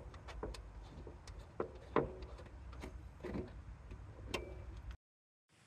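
Sparse, irregular metallic clicks and light clinks, a few with a faint ring, from hand work on a rear coilover and its mounting hardware. The sound cuts off suddenly about five seconds in.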